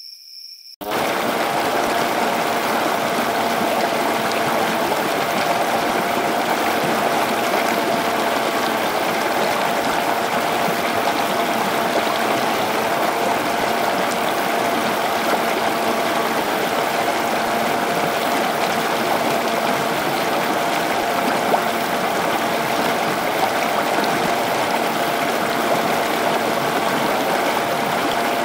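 A small DC motor driving a miniature water pump switches on suddenly about a second in and runs with a steady whine, while water from its outlet pours and splashes into a muddy pool.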